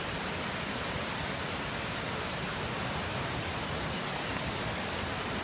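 Steady rushing water of a waterfall, an even hiss that does not change.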